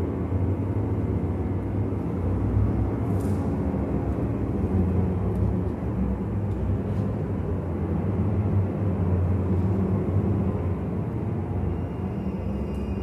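Steady low rumbling drone with a faint hiss over it, holding at an even level throughout. A couple of faint clicks come through, the first about three seconds in.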